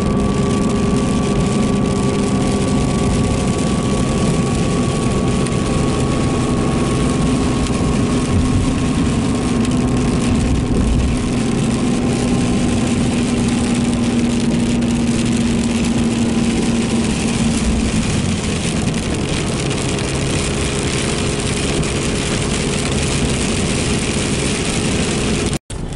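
Steady engine and road noise heard from inside the cab of a 2018 Ram diesel pickup towing a heavy fifth-wheel camper at highway speed. A low hum runs under it and fades about two-thirds of the way through. The sound cuts out briefly just before the end.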